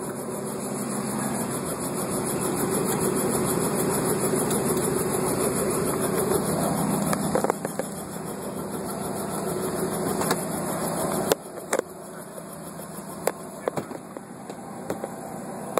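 An engine running steadily, growing louder over the first several seconds, then dropping sharply about eleven seconds in, followed by a few sharp clicks and knocks.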